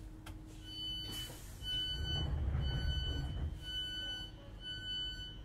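Five electronic beeps, each about half a second long and about a second apart, from the door warning alarm of a British Rail Class 321 electric multiple unit, heard from inside the coach. A low rumble swells under the second and third beeps.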